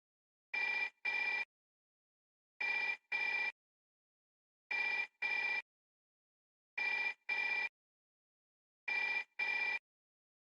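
Old telephone ringing in a double-ring pattern: two short rings, then a pause of about a second, repeating five times at an even pace.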